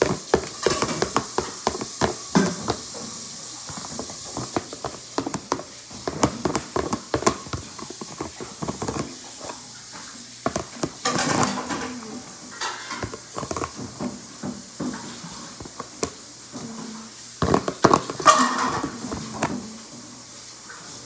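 A utensil scraping and knocking against a plastic mixing bowl as cake batter is worked out into a metal cake pan. It makes a run of irregular clicks and scrapes, with louder scraping spells about ten seconds in and again near the end.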